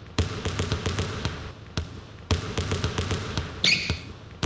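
Balls bouncing on a hard court, a rapid, irregular run of sharp thuds, with a short high squeak about three and a half seconds in.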